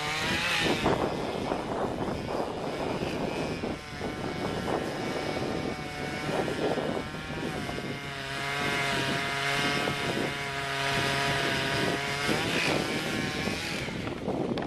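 Chainsaw fitted with a 4-foot bar running at high revs while cutting into a large tree trunk. Its engine pitch shifts under load near the start and again near the end.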